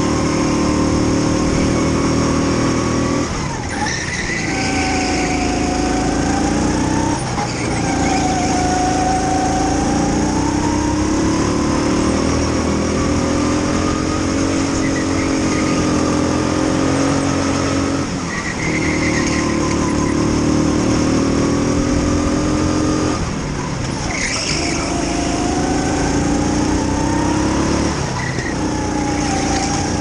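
Sodi rental go-kart's single-cylinder four-stroke engine at racing speed, heard onboard. The revs climb along the straights and drop off sharply five times as the kart brakes for corners.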